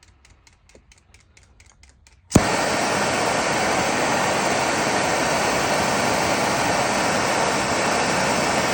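MAPP gas torch lit with a sharp pop about two seconds in, then burning with a loud, steady hiss.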